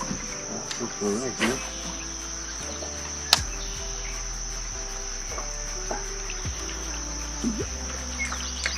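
Steady, high-pitched drone of insects, with a single sharp click about three and a half seconds in.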